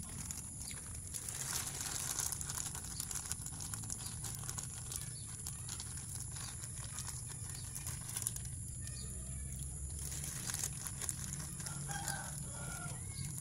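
A plastic bag of suckermouth-catfish roe being squeezed and kneaded by hand, the plastic crinkling and rustling in short bursts of handling noise.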